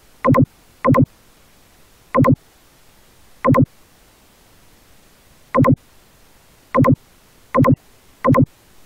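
Eight short electronic beeps at uneven intervals, each a brief pitched tone, loud against a faint background hiss.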